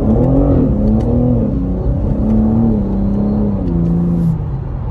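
BMW M3 Competition (G80)'s twin-turbo inline-six accelerating hard from a stop, heard from inside the cabin: the engine note climbs, then drops in steps as the car shifts up through the gears. Revs are held below 5,000 rpm because the engine is still being broken in.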